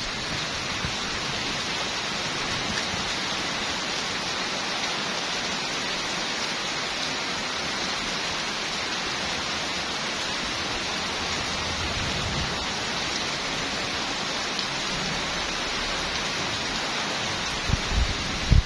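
Heavy rain falling steadily, a dense, even hiss. A few short low thumps come near the end.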